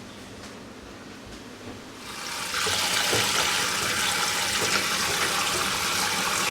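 Kitchen tap turned on, water running hard into a sink: a steady rushing that swells in about two seconds in and stops suddenly.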